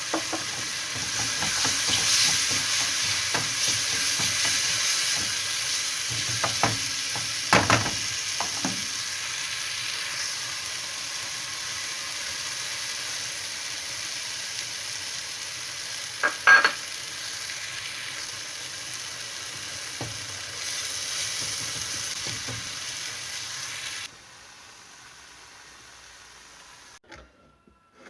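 Menemen cooking in a frying pan: steady sizzling, with a few sharp clinks of a utensil against the pan, one of them ringing. The sizzling stops abruptly about four seconds before the end.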